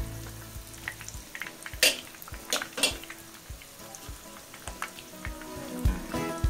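Breaded chicken cheese balls deep-frying in hot oil in a pan: a steady sizzle with scattered sharp pops and clicks, several louder ones about two to three seconds in.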